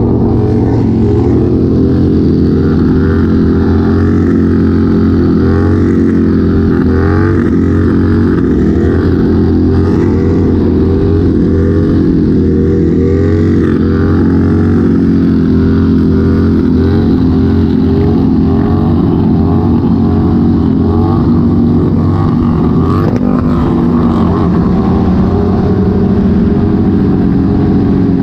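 Motorcycle engines running steadily at highway speed, a loud continuous drone picked up on a rider's helmet camera.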